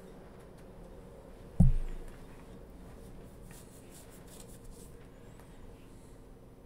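Quiet room tone with a single low thump about one and a half seconds in, and faint scattered ticks.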